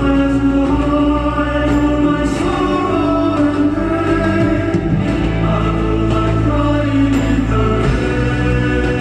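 Male choir singing long, held chant-style harmonies over a steady band accompaniment, heard live through the hall.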